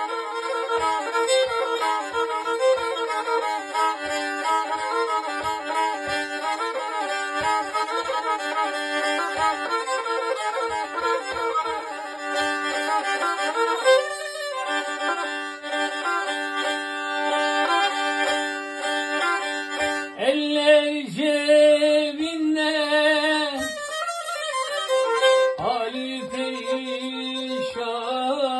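Black Sea kemenche played solo with fast, busy bowing in a folk tune. About twenty seconds in, a man's voice joins it, singing two long held phrases over the instrument.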